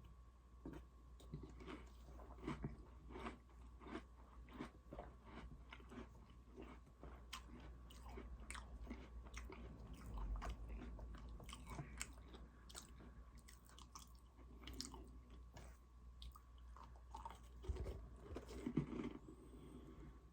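Close-miked chewing and biting of Oreo cookies, a steady run of small crisp crunches.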